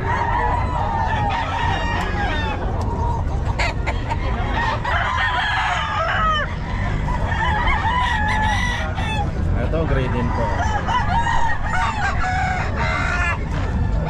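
Many gamefowl roosters crowing over one another, with clucking, a constant overlapping chorus of calls.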